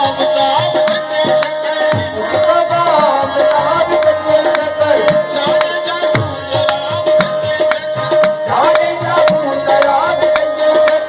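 Music with a drummed percussion rhythm, a melody that slides up and down in pitch, and one steady held tone underneath.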